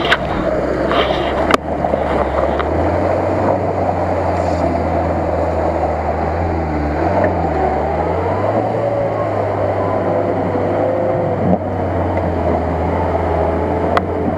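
Off-road vehicle engines running: a steady low idle close by, with an engine note that rises and falls midway as a Lada Niva drives through the mud. A few sharp knocks near the start and near the end.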